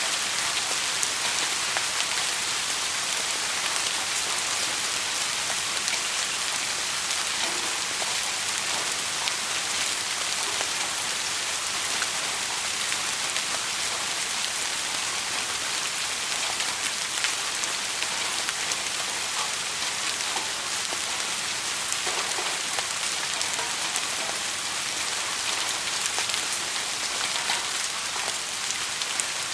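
Steady rainfall: a dense, even hiss of rain with many fine individual drop ticks.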